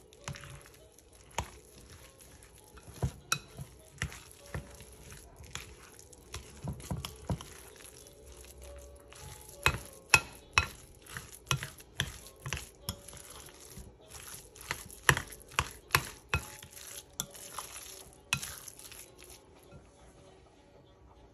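Stainless spoon stirring a thick cheese filling in a glass mixing bowl, knocking and scraping against the glass in irregular sharp clinks. The clinks come most often from about ten seconds in and stop shortly before the end.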